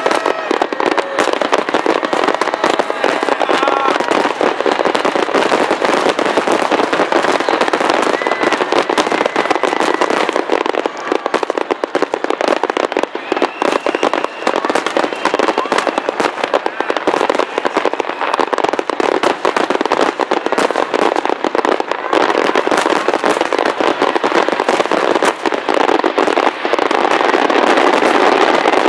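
Dense fireworks barrage: many aerial shells bursting and crackling at once in a continuous run of overlapping bangs, getting louder near the end.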